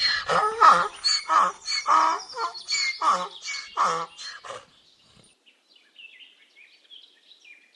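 Donkey braying: a run of loud, repeated hee-haw calls lasting about four and a half seconds, followed by faint high chirping.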